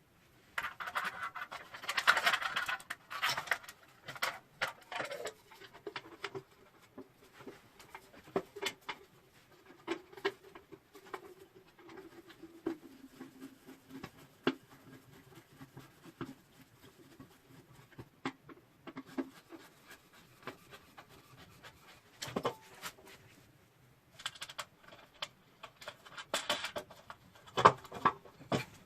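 Handling noise from unpacking a twin halogen work light and its packaging: rustling, with many short clicks and knocks, busiest near the start and near the end. A faint low hum sits under it through the middle, dropping in pitch partway.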